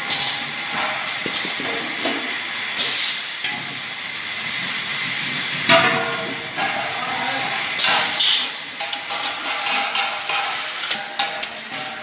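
Machinery of an automatic LPG cylinder filling line running steadily, with scattered clicks and two sharp bursts of hissing, about three seconds in and again about eight seconds in, as the filling heads vent.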